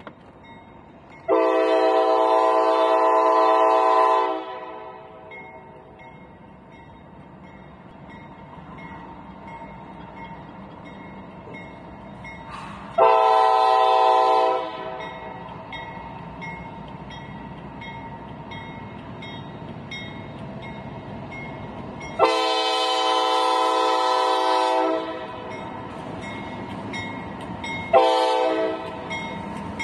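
CSX freight locomotive's air horn sounding four blasts, long, short, long, short, as it approaches a grade crossing. Between the blasts, the low rumble of the approaching train slowly grows, and a crossing bell dings steadily in the background.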